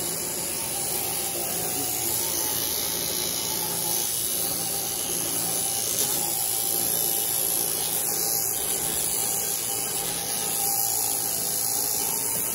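Power sheep-shearing handpiece running steadily as its comb and cutter clip through a ram's fleece, a continuous whirring hiss.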